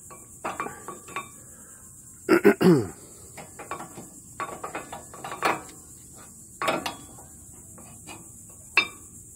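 Metal brake pads clinking and knocking as they are set into the caliper bracket's clips of a 2001 Mercury Grand Marquis front disc brake. The loudest moment is a quick cluster of knocks with a short falling tone about two and a half seconds in, and there is one more sharp clink near the end.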